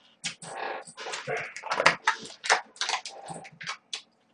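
Wet chewing and smacking of a mouthful of cold noodles, in a quick irregular run of short mouth sounds that stops shortly before the end.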